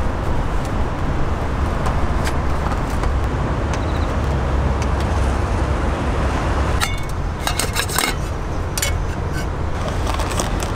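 Steady low rumble of road traffic. Near the end, a run of sharp clicks and crackles as plastic packaging is handled.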